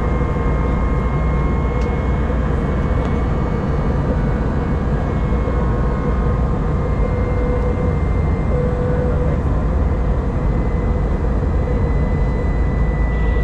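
Airliner cabin noise in flight, heard at a window seat: a steady roar of engines and rushing air with a thin, steady high whine over it.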